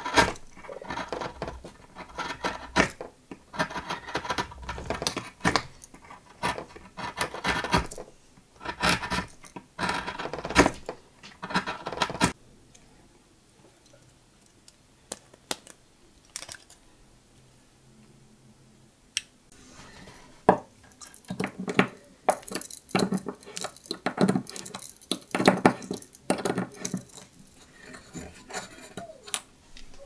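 Victorinox Swiss Champ pocket knife at work: repeated scraping strokes as a narrow blade shaves a pine block. About twelve seconds in, a quieter stretch of sharp metal clicks as the knife's tools are opened and handled. From about twenty seconds in, a denser run of clicks and scrapes.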